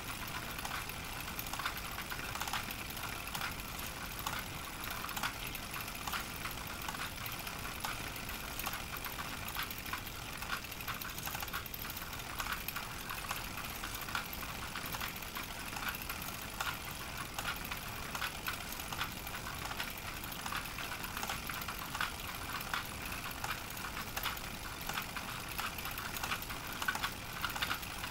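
Hand-cranked Pathescope Baby 9.5 mm cine projector from about 1930 running, its film-advance mechanism giving a fast, steady mechanical clatter.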